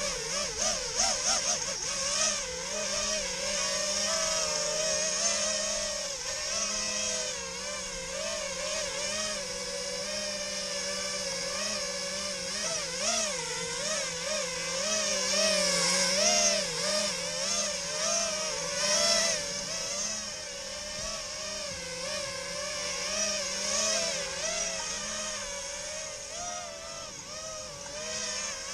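Four brushless motors of a 5-inch FPV quadcopter (Rotor Riot Hypertrain 2306 2450KV on 4S) whining with their propellers. The pitch wavers up and down continually as the throttle changes.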